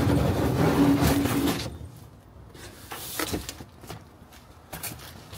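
Large cardboard box being slid up and off a rolling metal tool cabinet: a loud scraping rub of cardboard for about a second and a half, then a few light knocks.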